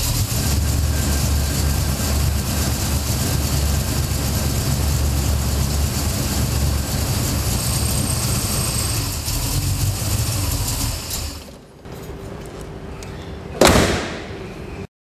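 Brock VC Commodore's modified Holden V8 engine running loudly with a heavy low rumble for about eleven seconds, then dropping away to a quieter sound. A single sharp bang comes near the end before the sound cuts off.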